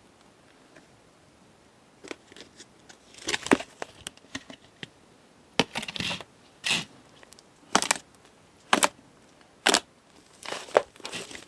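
Fluffy, chewy clay slime being squeezed and poked by hand, giving irregular sticky pops and crackles about once a second, starting about two seconds in.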